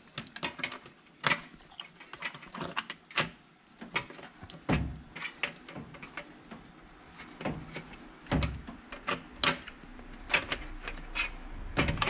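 Irregular clicks and taps of a microwave's control circuit board being handled and set into its sheet-metal mounting tray, with a few heavier knocks.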